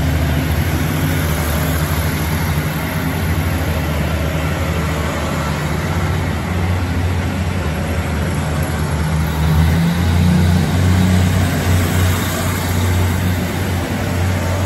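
Underfloor diesel engines of a Taiwan Railway DR3100 diesel multiple unit running as the train moves out. The engine note steps up and grows louder about ten seconds in.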